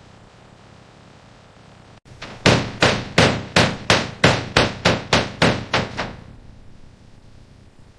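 Hammering: about a dozen sharp, evenly paced strikes, roughly three a second, each ringing briefly, growing fainter toward the end.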